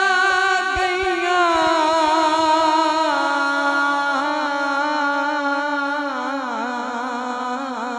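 A man singing a long, drawn-out note of Punjabi devotional verse (kalam) into a microphone. His pitch wavers with vibrato and slowly sinks as the note is held.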